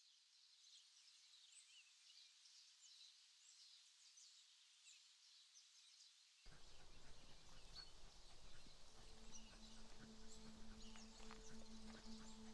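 Faint woodland birdsong: scattered high chirps and short calls. About six and a half seconds in, a low noise comes in, and from about nine seconds a faint steady hum joins it.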